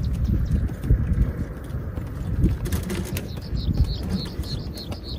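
Wind rumbling on the microphone, with a run of short, high chirps at about four a second starting about three seconds in.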